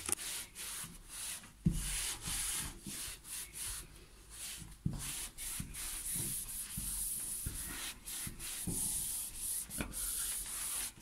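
Cloth wiping a door's glass panel in repeated rubbing strokes, about one to two a second, cleaning off sprayed glass cleaner, with a few soft knocks against the door.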